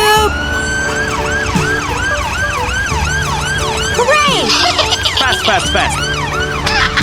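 Siren sounding in a fast yelp of rising-and-falling sweeps, about two to three a second, with more overlapping sweeping sounds joining after about four seconds.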